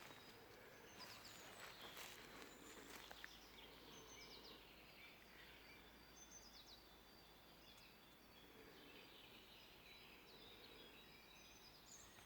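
Faint songbirds chirping and calling with short high notes over a soft background hiss, with a few soft crackles in the first few seconds.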